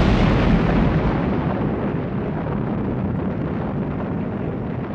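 A large explosion's long, deep rumble, loudest at the start and slowly dying away.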